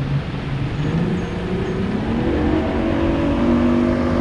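Motorboat engine running nearby; its pitch rises about two seconds in, then it holds steady and gets louder.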